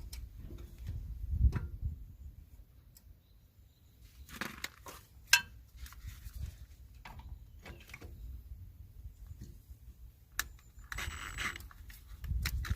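Scattered clinks and knocks of metal tools and parts being handled, with one sharp click about five seconds in.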